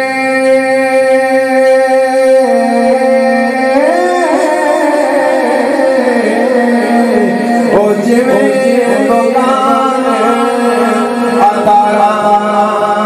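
A man's solo voice sings a naat (an Urdu devotional poem in praise of the Prophet) into a microphone. He holds one long steady note for the first couple of seconds, then moves into wavering, ornamented melodic runs.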